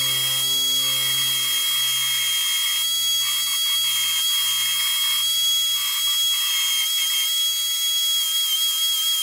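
Belt sander running with a steady high whine while a wooden frame-saw part is rough-sanded on the belt; the rasp of wood on the abrasive comes and goes with each pass. Quiet background music fades out near the end.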